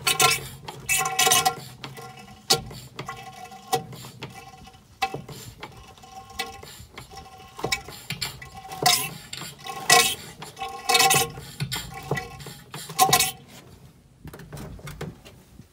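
Hand-operated drum pump worked stroke after stroke, sucking and gurgling as it draws the last oil from the bottom of a nearly empty drum, so it pulls air along with the oil. About a dozen uneven strokes, each a short sucking burst.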